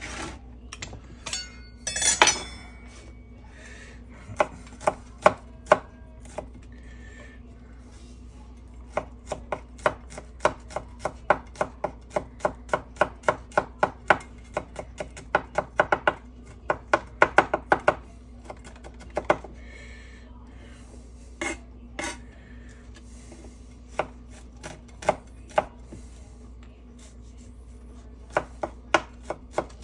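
A chef's knife chopping garlic cloves on a wooden cutting board, making sharp knocks of the blade on the board. There is one louder clatter about two seconds in, then a quick run of about three knocks a second in the middle, and slower, sparser strokes toward the end.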